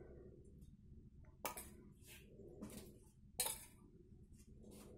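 Steel spoon scooping ghee out of a small steel bowl and tapping it into a bowl of flour: about five faint, sharp metal clinks, the loudest about a second and a half and three and a half seconds in.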